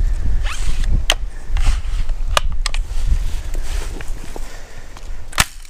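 Wind buffeting the microphone in a steady low rumble, with a few sharp clicks, the loudest near the end.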